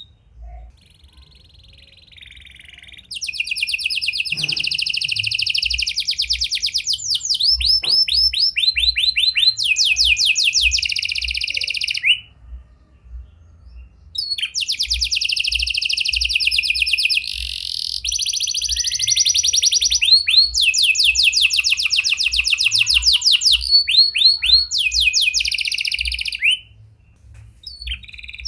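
Red-factor canary singing long runs of fast trills and rolls, in a song with phrases in the style of prinia and lovebird calls. It starts softly, then sings loud and full, breaking off briefly twice, once in the middle and once near the end.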